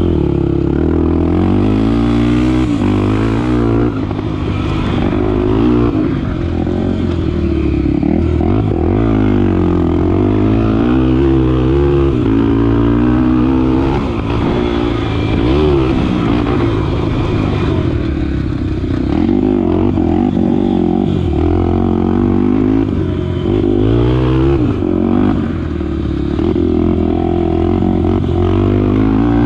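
Honda XR250 Tornado's single-cylinder four-stroke engine being ridden hard, its pitch rising and falling again and again as the throttle opens and closes.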